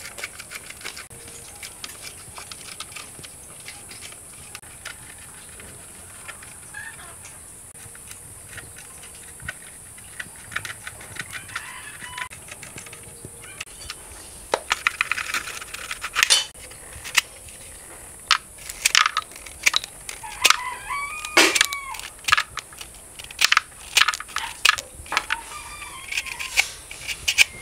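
Screwdriver and metal parts of a rusted M16 rifle clicking and knocking as it is taken apart on a concrete floor, getting busier and louder from about halfway through. Bird calls are heard in the background in the second half.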